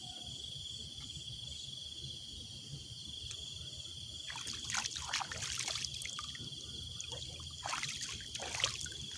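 Water splashing and dribbling in two bouts, about four seconds in and again near the end, as a caught fish and the hook line are handled at the water's edge. Under it, a steady high insect trill.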